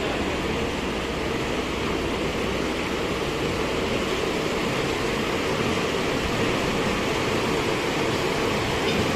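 Steady machine noise, an even rush with a low hum, with no press strokes or impacts.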